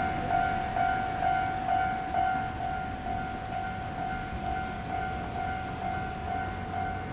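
Japanese level crossing warning bell ringing, a repeating electronic two-note ding a little over twice a second, with the low rumble of a Shizuoka Railway A3000-series electric train pulling slowly out of the station underneath.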